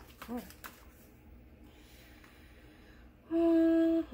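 A woman humming: a short 'mm' that rises and falls about a third of a second in, then a loud steady held note near the end. Faint ticks of paper and stickers being handled sit underneath.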